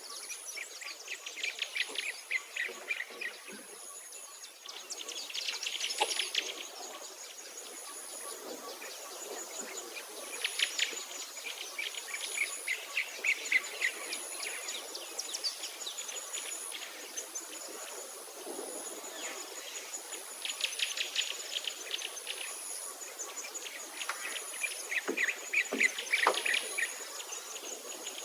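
Wild birds singing in repeated bursts of quick chirping phrases, over a high, thin insect buzz that pulses on and off every second or two.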